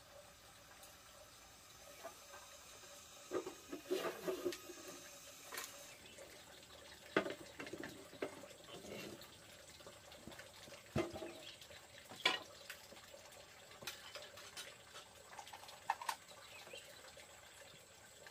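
Water splashing in short, irregular bursts, with a few small knocks in between.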